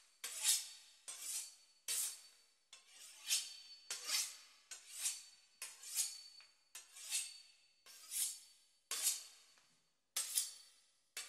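A knife sawing back and forth through the crisp pastry crust of a beef Wellington. It makes a run of dry scraping strokes, about one and a half a second.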